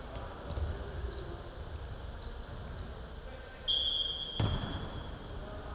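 Basketball game in a gym: sneakers squeaking on the court floor and a ball thudding, then a referee's whistle blown once for about a second, about two-thirds of the way in, followed by a sharp ball bounce.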